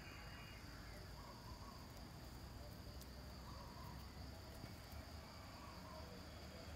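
Faint, steady, high-pitched chirring of insects over a low background rumble.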